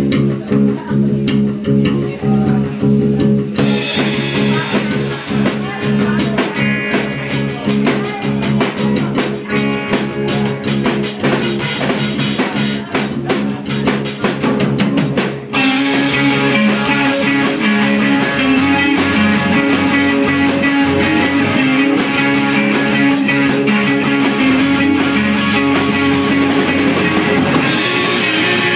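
Live rock band playing: electric guitars and bass guitar, with the drum kit coming in fully a few seconds in. About halfway through, the band moves into a louder, denser section.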